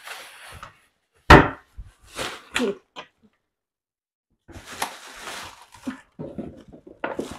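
Kitchen cabinet doors and their contents being handled: a sharp knock about a second in, like a cupboard door shutting, then a few lighter knocks. Later a plastic bag rustles as it is handled.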